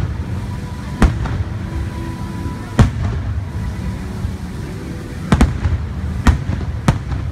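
Aerial firework shells bursting overhead: about six sharp bangs, one about a second in, one near three seconds, a quick pair past five seconds and two more near the end, each with a short echoing tail, over a continuous low rumble and the show's music.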